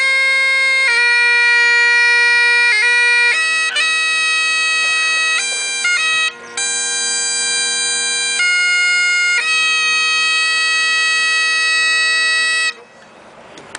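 Great Highland bagpipes played solo: steady drones under a slow chanter melody ornamented with quick grace notes. The pipes cut off abruptly near the end as the tune finishes.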